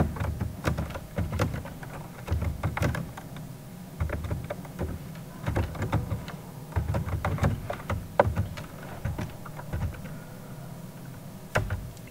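Typing on a computer keyboard: irregular runs of keystroke clicks with short pauses between them, and a quieter gap of about two seconds near the end.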